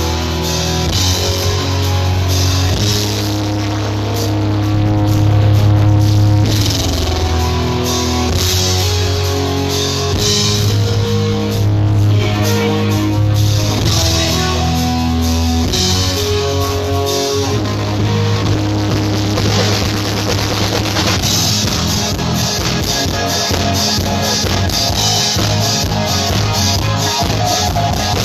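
Instrumental rock music with electric guitar and drum kit over a steady bass line, played loud.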